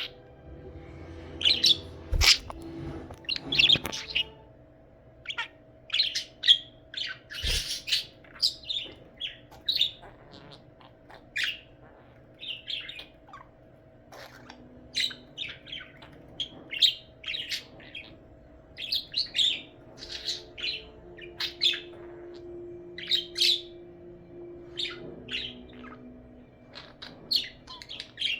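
Budgerigar chirping: a long run of short, irregular high chirps and warbles, with two sharp taps about two and seven seconds in.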